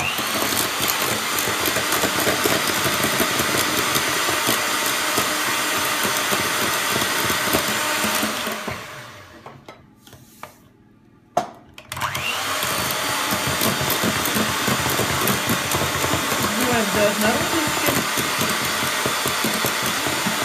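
Electric hand mixer running at speed, its beaters whisking eggs with sugar in a stainless steel pot. About eight seconds in the motor winds down and stops, a couple of clicks sound in the pause, and about twelve seconds in it starts up again.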